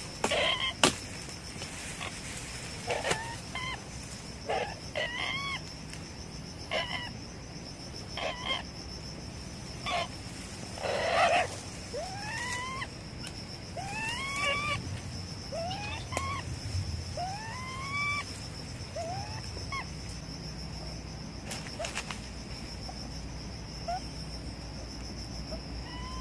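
Trapped ferret-badger crying in distress: first short squeaks, then from about halfway a run of whining calls, each rising then falling, roughly one a second. A sharp click sounds about a second in, and a steady high insect hum runs behind.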